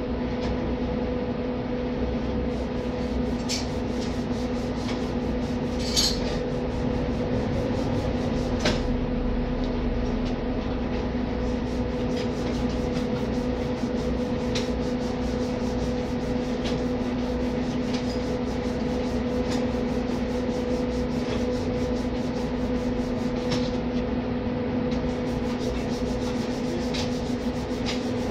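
Steady machine hum with a constant droning tone, overlaid by scattered light clicks and a few sharper knocks from hand tools working on a high-voltage cable end; the loudest knock comes about six seconds in.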